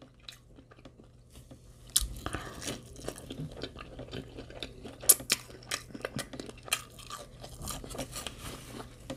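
A person chewing and biting food close to the microphone, with irregular crisp crunching clicks starting about two seconds in.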